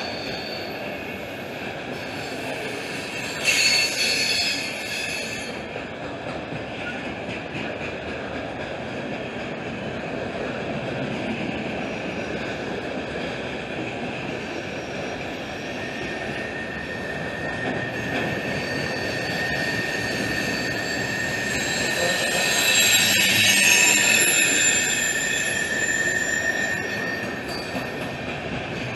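Freight cars of a passing CSX train rolling by, a steady rumble of wheels on rail with thin, high wheel squeal running through it. The squeal flares briefly and loudly about four seconds in, then swells to its loudest a little past twenty seconds.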